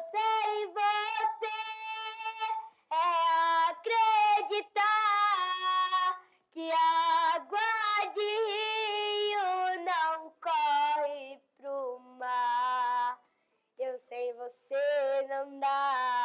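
A young girl singing unaccompanied, held notes with vibrato in phrases broken by short pauses for breath.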